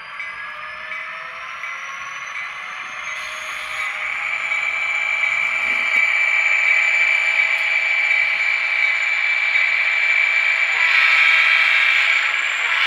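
Sound system of a model Santa Fe SD40-2 diesel locomotive playing diesel engine sound that revs up, a rising whine over the first few seconds and growing louder about four seconds in, then running steady with a high whine, along with the clatter of the model rolling on the track.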